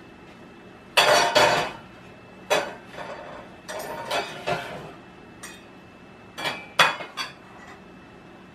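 Metal objects clanging and clattering: a series of sharp, ringing metallic clanks in irregular clusters, the loudest about a second in, as someone knocks about metal things in a garage.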